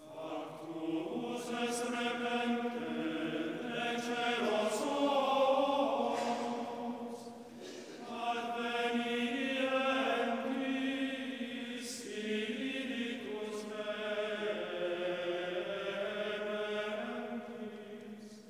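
A choir of boys and men singing sacred music in several parts at once, in long held notes, in three phrases with short breaks between them.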